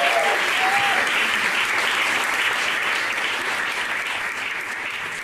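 Audience applauding at the end of a song, a brief voice cheering in the first second, the clapping slowly dying down.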